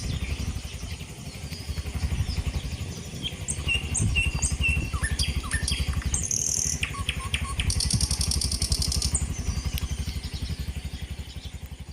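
Forest birds chirping and whistling in short scattered calls, with a high buzzing trill for a second or so about two-thirds of the way through. Underneath runs a steady, rapid low throbbing.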